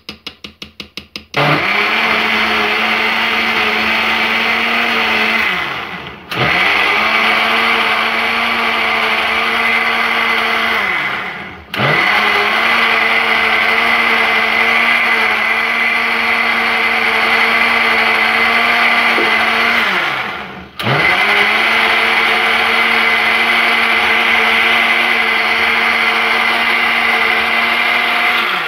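Electric blender running on cake batter of eggs, sugar, oil, milk and cocoa, with a steady motor hum. It is switched off and straight back on three times, the hum dropping in pitch each time it winds down. A quick run of light ticks comes just before the motor first starts.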